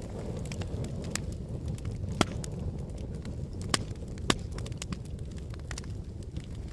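Wood fire crackling with frequent sharp snaps and three louder pops, over a low steady rush of wind.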